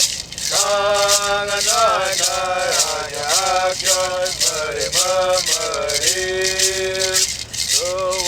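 A traditional O'odham song sung solo by one voice, with long held notes and slides between them, accompanied by a hand rattle shaken in a steady beat.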